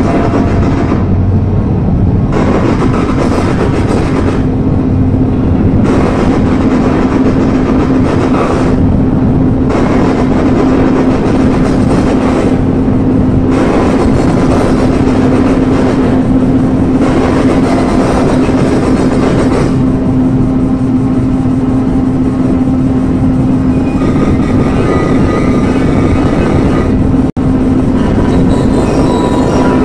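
Loud, dense live electronic noise music: a steady low drone held throughout under a grinding, rumbling texture whose higher noise cuts in and out every second or two. Near the end it drops out for an instant, and a few thin higher tones enter.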